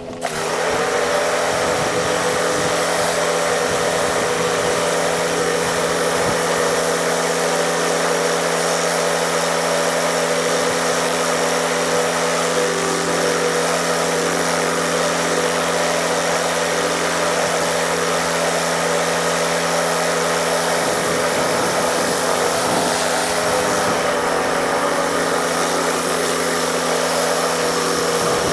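A small engine running steadily at constant speed under a loud, continuous hiss of rushing water or air, starting abruptly at the beginning.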